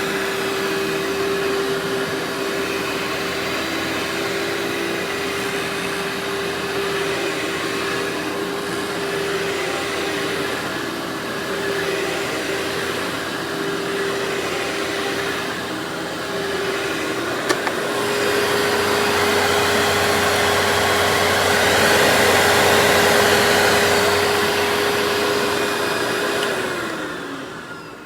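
Workhorse vacuum cleaner running with a steady motor whine over rushing suction air. A sharp click comes about two-thirds of the way through, and the airflow grows louder after it. Near the end the motor is switched off and its whine falls as it spins down.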